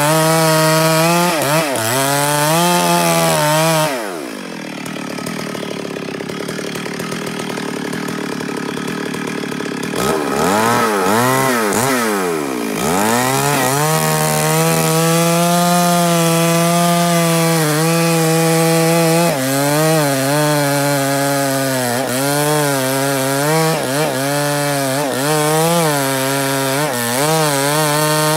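Two-stroke chainsaw cutting a felled kapok log. It runs at full throttle, drops to idle about four seconds in, and is revved several times around ten seconds in. It is then held at full throttle, with short dips in pitch as the chain bites into the soft wood.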